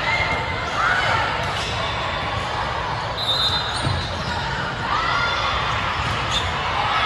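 Gym sounds during a volleyball match: athletic shoes squeaking on the court floor, with a short arching squeak about a second in and another about five seconds in, over voices and general noise in the hall.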